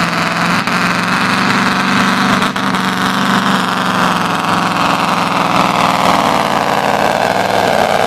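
Scania V8 truck engine running at full throttle under heavy load while it drags a truck-pulling sled. It is a loud, steady drone whose pitch sinks a little over the last few seconds.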